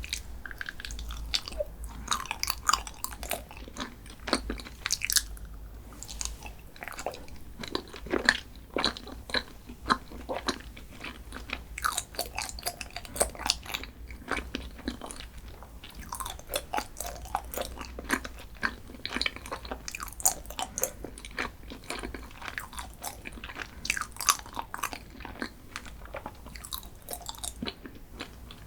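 Close-miked eating: bites and crunchy chewing of a chocolate snack, a steady stream of crisp crackles at an irregular pace.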